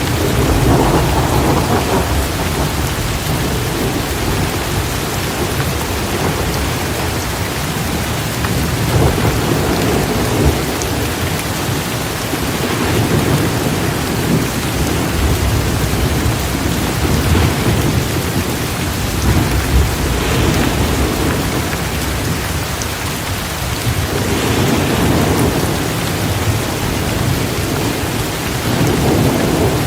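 Heavy rain pouring steadily, over a deep low rumble that swells every few seconds.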